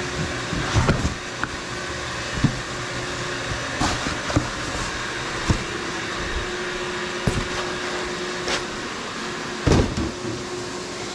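Steady whirring hum of a Fanuc Robodrill CNC machine running a cutting job, under scattered knocks and thumps from a heavy vise and its packaging being handled; the loudest thump comes near the end.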